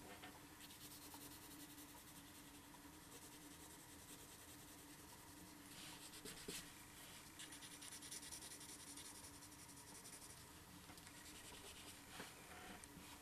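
Faint scratching of a graphite pencil on paper in quick, short strokes as fur texture is sketched in, busiest about eight to ten seconds in. A low steady hum runs underneath.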